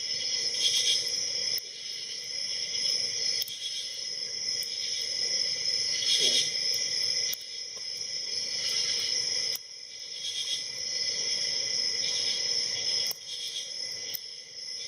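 Hook pick and tension wrench working the pins inside a Commando 44IC3 padlock with a mechanical dampener: a few small clicks and one short scrape, over a steady high-pitched chirring background.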